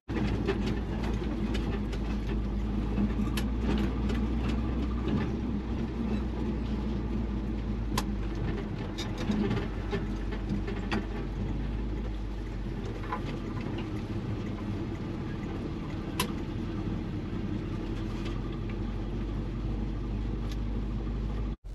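Cab sound of a 1975 Chevrolet C20 pickup on the move: the engine runs steadily under a low road rumble, with a few sharp clicks and rattles now and then.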